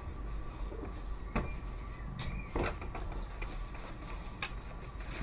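Handling noise: three light clicks and knocks spread a second or two apart, over a steady low rumble.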